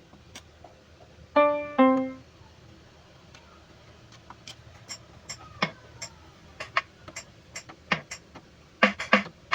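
Electronic keyboard sounding two short notes, the second a step lower, then a scattering of short sharp clicks and percussive hits, a few of them dropping quickly in pitch.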